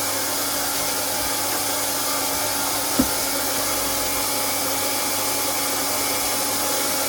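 Hot-air plastic welding gun blowing steadily: an even fan-driven hiss with a constant hum under it. A single short tap about three seconds in.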